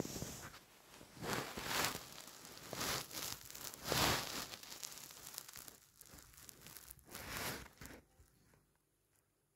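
Rustling, crinkling noise in several swells, stopping about eight seconds in.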